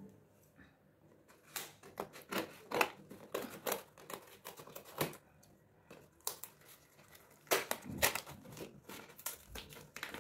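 Small cardboard box and its paper packaging being handled and pulled open by hand: irregular crinkling, tearing and clicking, in two busy stretches.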